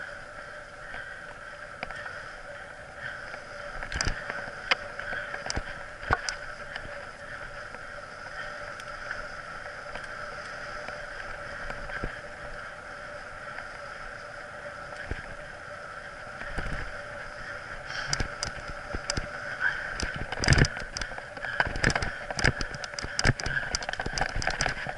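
Mountain bike rolling along a dirt singletrack with a steady whir. Scattered knocks and rattles come over bumps, and the rattling turns dense and loud over the last several seconds on rougher ground.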